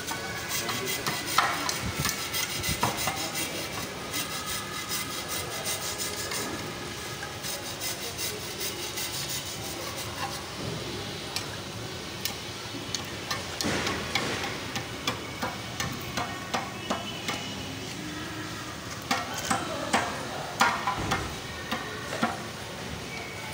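Workshop clatter: a stream of light metal taps and knocks, with a run of louder strikes about three-quarters of the way through.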